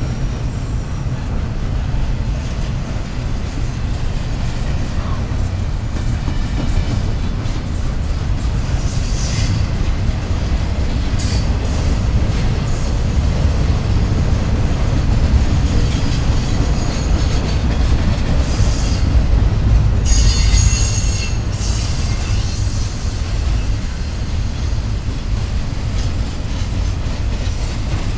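Freight train cars rolling past with a steady heavy rumble, and wheels squealing in short high-pitched squeals now and then. The train is loudest about twenty seconds in.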